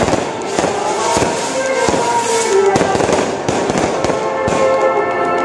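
A string of firecrackers going off in rapid, irregular sharp bangs, several a second, with music playing underneath.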